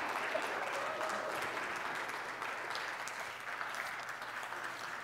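Congregation applauding, a steady patter of many hand claps that slowly fades.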